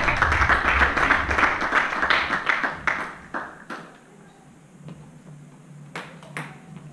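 Spectators applauding after a table tennis rally. The clapping fades out after about three seconds. Then come a few sharp single clicks of a table tennis ball bouncing.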